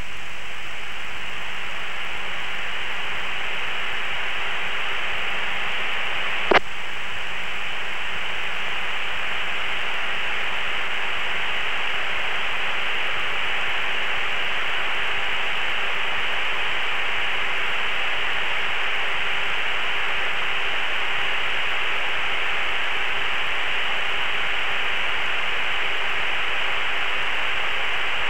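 Steady hiss of static on a cockpit radio channel, with one short click about six and a half seconds in.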